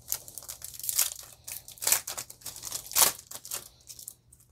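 Foil wrapper of a Yu-Gi-Oh booster pack crinkling and tearing as it is handled and ripped open by hand, a run of irregular crackles with the loudest about three seconds in.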